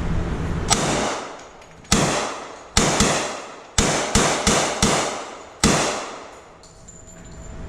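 A string of about seven gunshots, some fired in quick succession about a third of a second apart, each followed by a ringing echo that dies away.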